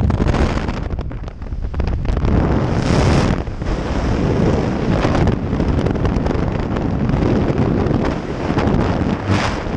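Loud wind rushing and buffeting over the microphone in the slipstream of a small jump plane's open door, swelling in gusts about three seconds in and again near the end.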